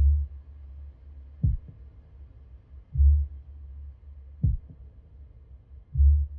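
A slow, heartbeat-like pulse over a steady low hum. A deep thud comes every three seconds, with a sharper double beat halfway between each pair of thuds.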